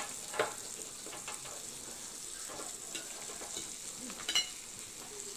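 Steady sizzling of a raclette grill melting cheese and cooking meat, with a few short scrapes and clinks as melted cheese is scraped from the raclette pan onto the plate.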